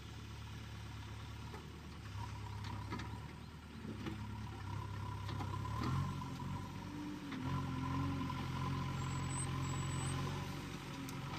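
JCB backhoe loader's diesel engine running, picking up to a louder, slightly higher note about six seconds in as the backhoe arm works, with a few short knocks.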